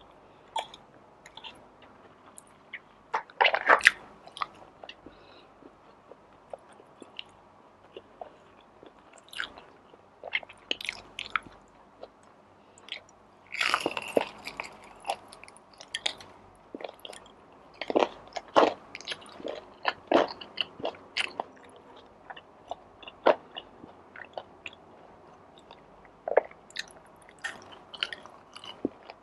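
A person biting and chewing a meal of calamares and tuna pasta: irregular short mouth clicks and chews, with two louder bursts about four seconds and fourteen seconds in.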